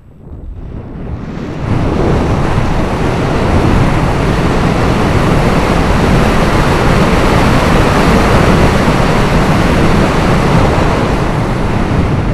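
Wind rushing over the onboard camera's microphone on a Hobbyking Dynamic-S RC plane gliding with its motor stopped and the propeller still. The rush builds over the first second or two, then holds steady, with no motor tone.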